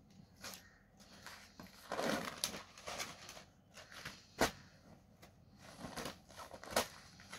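Folded cotton sarees being handled: cloth rustling and sliding as one is lifted off a sheet-covered table and another is laid down, with a few sharp clicks, the loudest about four seconds in.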